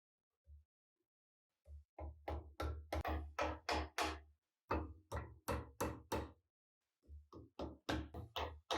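A series of sharp knocks, about three a second, in short runs with brief pauses between them.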